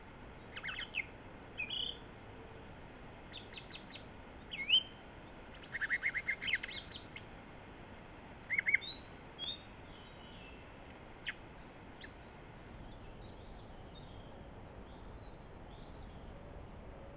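Wild songbirds singing: a string of short whistled notes and quick trills, loudest in the first half. Two sharp clicks follow, then only faint distant chirps over a low background hiss.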